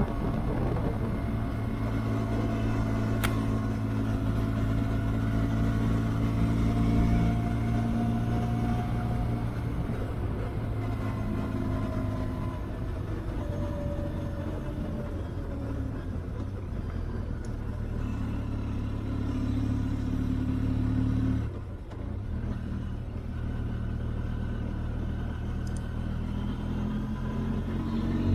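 Benelli TRK 502X motorcycle's 500 cc parallel-twin engine running at fairly steady revs. The engine note dips briefly about three-quarters of the way through, then picks up again and rises right at the end. There is a single sharp click about three seconds in.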